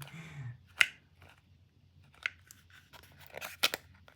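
Sharp clicks and light scraping from hands working a Stanley metal spring clamp. The loudest click comes about a second in, with a quick cluster of clicks near the end.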